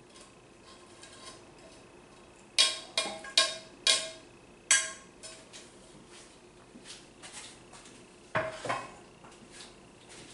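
Metal mesh strainer and metal pan clanking together: five sharp, ringing clanks in about two seconds. Two duller knocks follow near the end as the pan is set down on the counter.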